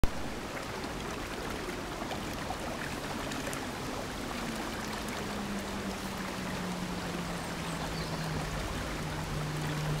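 Small stream running steadily over its bed, a continuous rushing of water. A low tone slides down in pitch and then holds steady from about halfway through, growing slightly louder towards the end.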